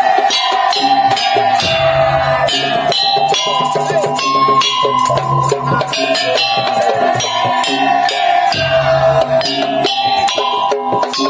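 Madurese tong-tong ensemble music: a fast, dense, even rhythm beaten on wooden slit drums and drums, under a sustained melody line that steps between a few notes.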